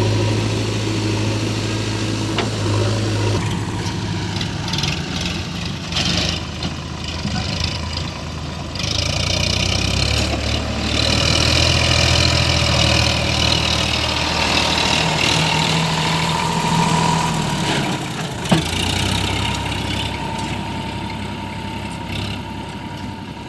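Diesel engines of a JCB 3DX backhoe loader and a tractor running, the sound growing louder and harsher about 9 s in as the machine works, then easing after about 18 s. A single sharp knock about 18.5 s in.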